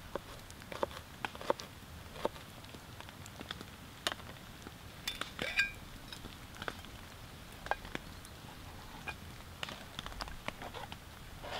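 A knife chopping food on a small board: a run of short sharp taps. About five seconds in, a mug is set down with a short ringing clink. Behind it all is a steady hiss of rain on the tent fabric.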